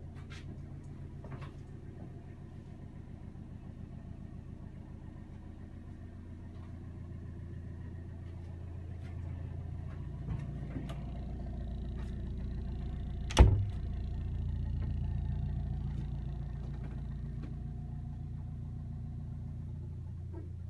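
A wide beam canal boat's engine running steadily with a low, even throb, getting a little louder about ten seconds in. A single sharp knock about thirteen seconds in is the loudest sound.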